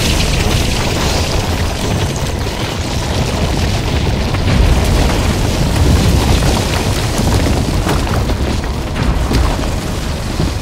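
Action sound effects of boulders raining down and crashing: a continuous heavy rumble with scattered impacts and booms.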